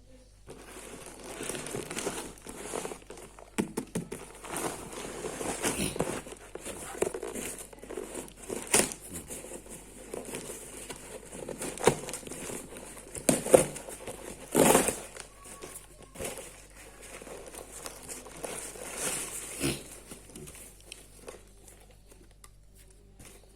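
Irregular crinkling and rustling handling noises, with a few sharper knocks and clatters among them.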